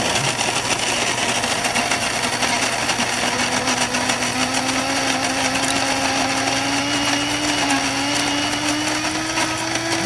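Secura SCG-903B electric burr coffee grinder running at its finest setting with the bean hopper nearly empty: a steady motor-and-grinding noise with a tone that climbs slowly in pitch.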